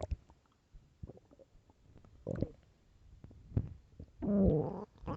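Human stomach growling: short gurgles about a second apart, then a longer, louder rumble with a low held pitch about four seconds in.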